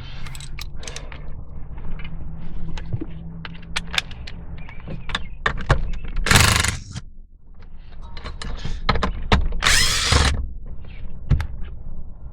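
Hand ratchet with a T30 Torx bit backing out seat bolts: scattered clicks and knocks, with two short spells of fast ratcheting, about six and ten seconds in.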